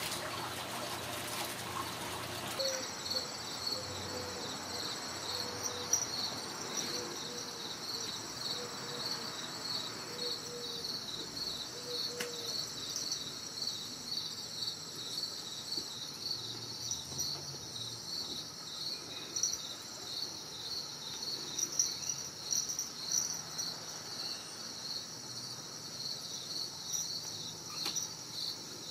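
Insect chirping steadily at a high pitch, in rapid even pulses. It starts about two and a half seconds in.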